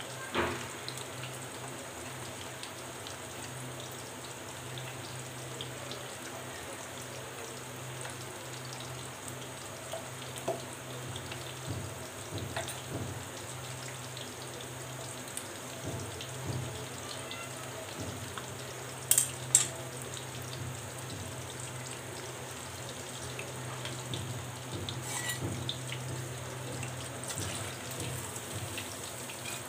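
Pastry-coated chicken fingers deep-frying in hot oil in an iron karahi, with a steady sizzling and bubbling. A few sharp clicks sound over it, two of them close together about two-thirds of the way through.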